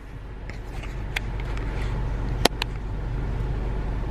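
Steady low hum of a car's interior, with a few sharp clicks and snaps as a takeaway food container is opened. The loudest snap comes about two and a half seconds in.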